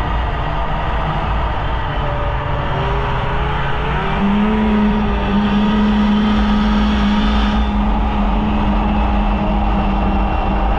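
Polaris Indy snowmobile engine running under throttle on the trail. Its pitch climbs about four seconds in and then holds steady as the machine speeds up.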